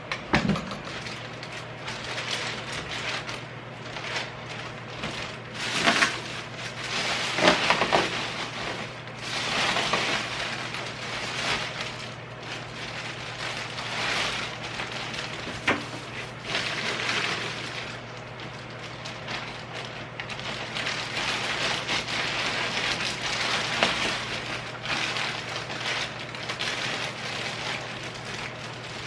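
Rustling and handling noises of things being unpacked, in irregular swells with a few sharp clicks and knocks, over a steady low hum.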